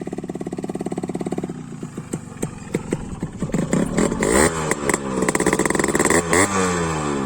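Yamaha RX 100's two-stroke single-cylinder engine idling with an even beat, then breaking into sharp pops about a second and a half in. From about three and a half seconds it is revved repeatedly, the pitch rising and falling with each blip of the throttle.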